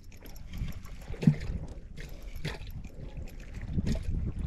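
Water lapping and splashing against a small skiff's hull, with wind rumble on the microphone and a few short knocks.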